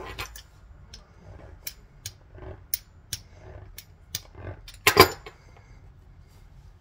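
Kitchen handling noise: a run of light clicks and taps, with one louder clatter about five seconds in.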